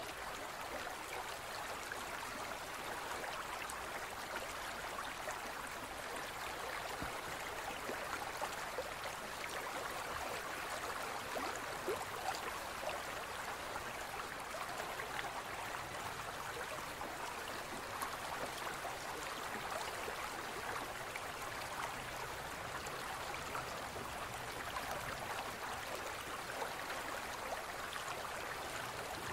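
Steady trickling, bubbling water with a fine crackle.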